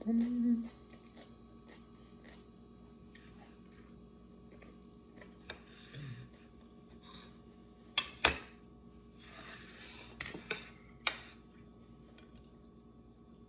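Eating with the hands from a plate: fingers gathering food with soft scrapes, and a few sharp clicks against the plate in the second half. A brief hummed 'mm' from the eater comes right at the start.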